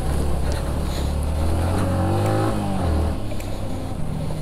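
Vehicle engine running under load with a low drone, revving up and easing off about two seconds in, then dropping back a second later.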